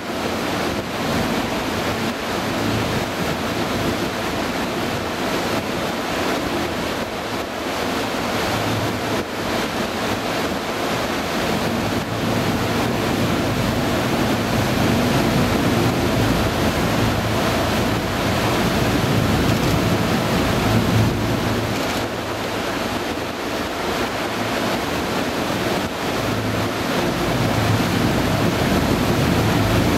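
Wind on the microphone over the steady running of a harbour tour boat's engine, with water washing past the hull.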